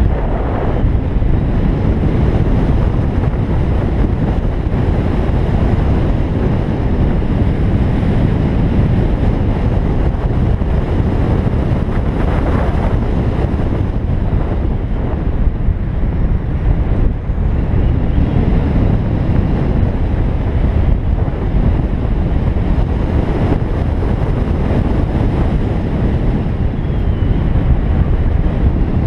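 Steady wind rushing over the microphone, mixed with the tyre and road noise of a car driving at speed.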